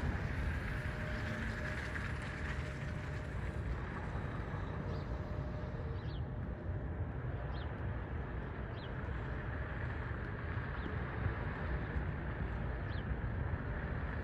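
Steady distant rumble and hiss of a Boeing 737's jet engines as it moves along the runway, mixed with wind on the microphone. A few faint, short, high chirps come through now and then.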